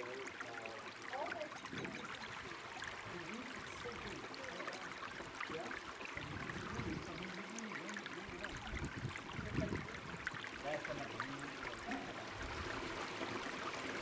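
Mountain stream water trickling and running over granite rock, a steady rushing wash, with people's voices faint in the background now and then.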